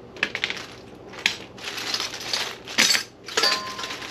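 Loose metal exhaust-kit hardware, such as clamps and hangers, being handled: clinking and rattling with several sharp knocks, and one piece rings briefly near the end.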